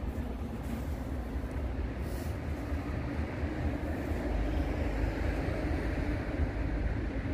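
Container freight train hauled by an electric locomotive approaching along the line: a steady rumble that grows slowly louder.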